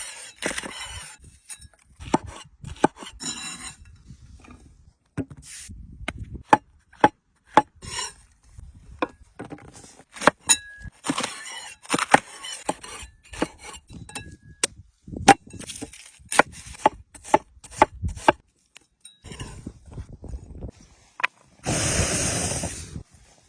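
Irregular sharp knocks, clicks and clinks of things being handled, some ringing briefly, with a loud burst of hiss about a second and a half long near the end.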